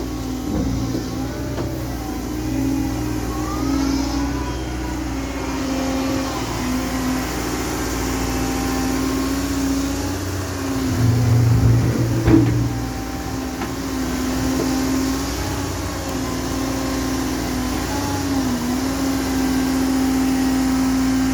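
Caterpillar M315F wheeled excavator's diesel engine running steadily at working revs. About eleven seconds in, a deeper surge lasts a second or so, with a sharp knock near its end. The pitch dips briefly near the end.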